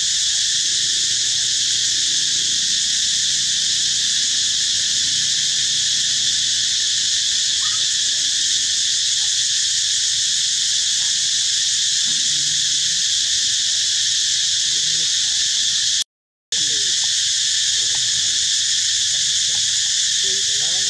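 Loud, steady insect chorus, a dense unbroken buzzing hiss of cicadas or crickets. It drops out completely for about half a second near sixteen seconds in.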